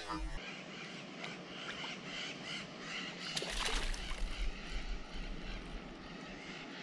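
Hooked fish splashing and thrashing at the water's surface beside the boat as it is reeled in, with the loudest splash about halfway through.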